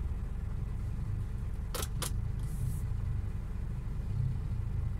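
Vehicle engine idling with a steady low rumble, heard from inside the cab while stopped at a red light. Two sharp clicks come about two seconds in, followed by a short hiss.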